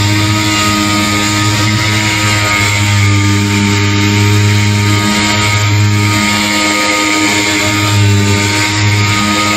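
Air-powered dual-action sander running steadily as it sands old paint off a Corvette's fibreglass hood, a constant whine over a gritty hiss, its level wavering a little.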